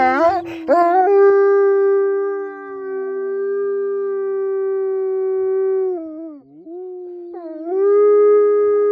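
Wolf howling: one long, steady howl that dips and breaks about six seconds in, then rises into a second long howl. A second, lower howl runs beneath the first and slides down in pitch over the first few seconds.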